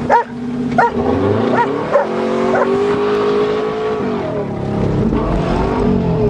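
A dog barks four times in the first few seconds over the Subaru Legacy's running engine. The engine then revs up, holds steady for a couple of seconds, drops back and rises again near the end.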